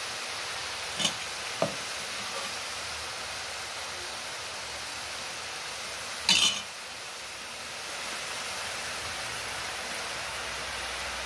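Boondi (drops of gram-flour batter) frying in hot oil: a steady sizzle, with a few short taps of the perforated ladle, the loudest about six seconds in.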